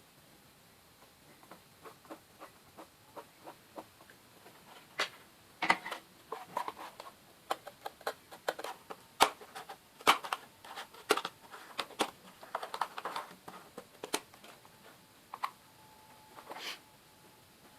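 Cardboard and craft tools being handled and worked by hand: irregular sharp taps and clicks with short scrapes and rustles, busiest in the middle, sparser near the start and end.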